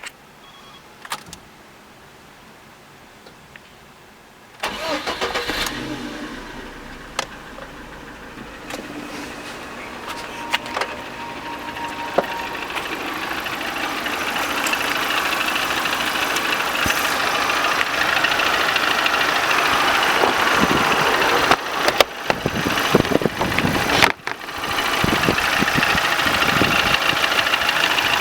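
A car engine is started about four and a half seconds in and runs at idle, growing gradually louder over the following seconds. A few sharp knocks and a brief dip in the sound come near the end.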